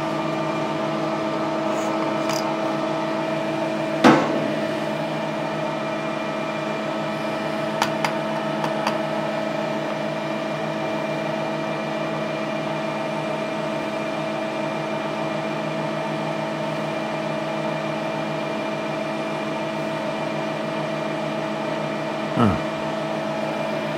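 Electric motor of a shop machine running at a steady pitch. A sharp metallic knock comes about four seconds in, a few light clicks follow, and there is a duller thud near the end.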